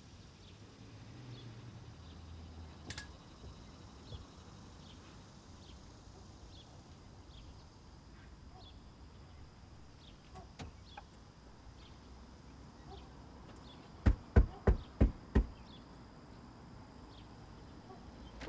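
Five quick, sharp knocks on the front door of a mobile home, a little past the middle, over a faint outdoor background with a soft high chirp repeating about once a second.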